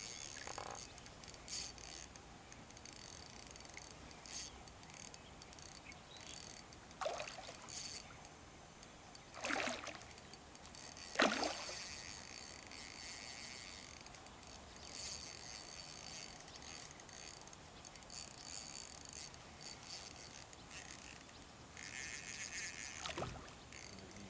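A hooked fish splashing and thrashing at the surface of a pond, about four short splashes spread over the stretch, the loudest about eleven seconds in, over a steady high buzz of insects.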